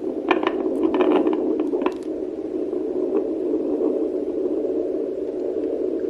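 Neeva Baby handheld fetal doppler's speaker giving a steady low hiss while the probe searches the belly. Scratchy crackles come through in the first two seconds as the probe slides over skin with too little gel.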